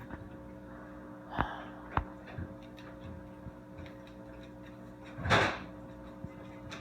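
A man sneezes once, a sudden loud burst about five seconds in, lasting about half a second. Two short knocks come earlier.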